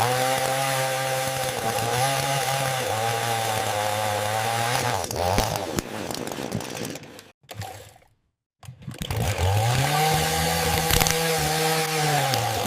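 AI-generated chainsaw sound: a chainsaw engine runs for about five seconds with its pitch dipping, then dies away. After a short break it starts again about nine seconds in, rising in pitch, holding, and winding down near the end.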